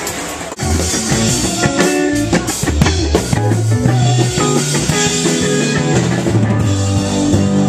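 Rock band playing with drum kit, cymbals, keyboard and a bass line moving between notes. It comes in abruptly about half a second in, after a short dip.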